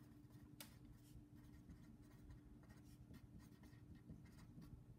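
Faint scratching of a ballpoint pen writing on paper, over a low steady hum.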